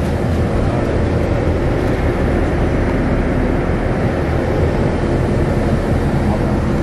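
Steady engine and road noise heard inside the cabin of a coach bus as it drives.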